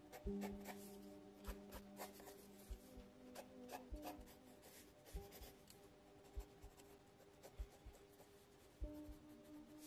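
Faint scratching of a mechanical pencil on sketch-pad paper, drawn in many quick short strokes.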